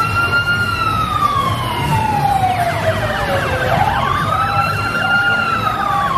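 Siren wailing, slowly rising and falling about once every four and a half seconds. About halfway through, a faster, rapidly repeating sweep joins it.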